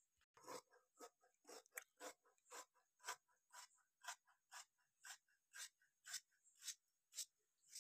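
Large tailor's shears cutting through trouser cloth on a hard floor, a steady run of short snips about two a second.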